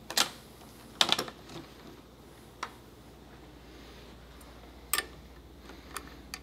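Steel hand wrenches clinking: a wrench is pulled from a wrench rack and fitted to a motorcycle's shift linkage bolt to check its size. A few sharp, separate metal clicks, the loudest near the start and a pair about a second in.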